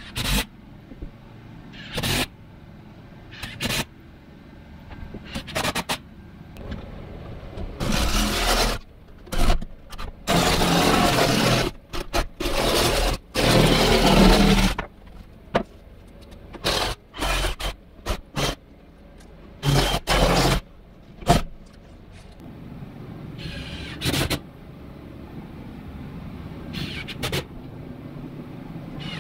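Cordless power tool running against OSB wall panelling, in short bursts and longer runs of several seconds, with sharp knocks in between.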